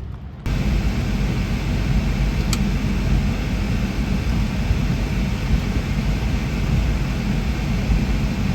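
Tornado wind and rain battering a car: a loud, dense rumble with a hiss over it that cuts in abruptly about half a second in and holds steady.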